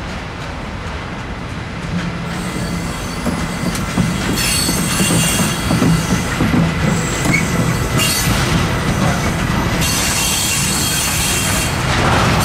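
A train passing on steel rails, growing louder over the first few seconds, with wheels squealing on the rails from about four seconds in.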